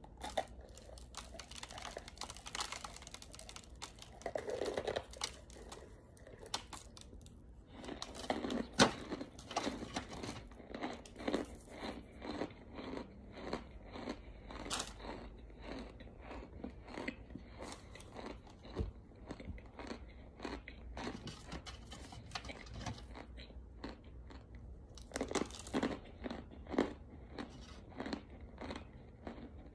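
Chewing and crunching through chunks of cornstarch: a long run of crisp crunches, roughly two chews a second. There is one sharp, loud crunch about nine seconds in, and another burst of crunching near the end.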